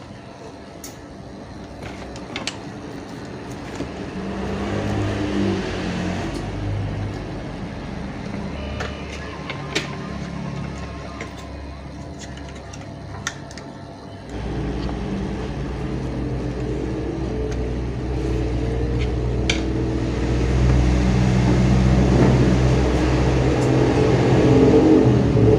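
A motor vehicle engine running, with a low hum that jumps louder about halfway through and keeps building toward the end. Scattered light clicks sound over it.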